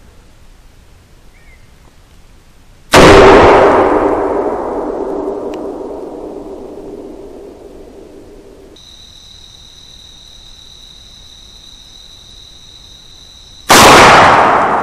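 Two rifle shots about eleven seconds apart, each a sharp crack followed by a long echo that fades over several seconds.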